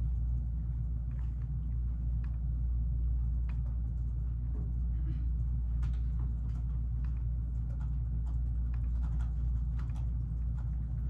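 Steady low rumble of room noise, with scattered faint clicks and taps at irregular times.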